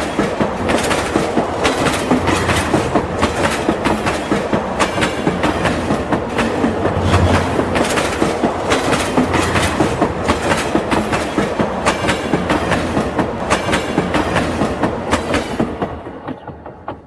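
Train wheels clicking over track joints in a steady clickety-clack over a running rumble, fading out near the end.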